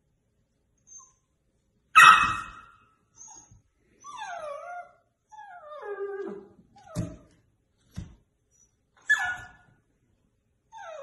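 Puppy barking and whining at its own reflection in a mirror: one loud sharp bark about two seconds in, then several falling whimpers, two short sharp yaps, and another yip near the end.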